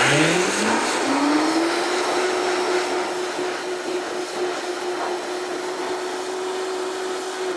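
Countertop blender grinding dry sprouted buckwheat into flour. The motor spins up with a rising whine over the first second or so, then runs at a steady pitch over the rushing of the grain in the jar.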